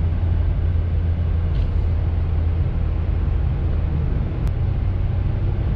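Steady low drone of engine and tyre noise inside the cabin of a Honda Fit cruising on a paved road.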